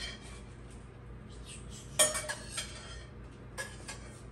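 Metal slotted spoon clinking and scraping against a pot and a bowl as boiled shrimp are scooped out. There is one sharp clink about two seconds in and a few lighter clinks after it.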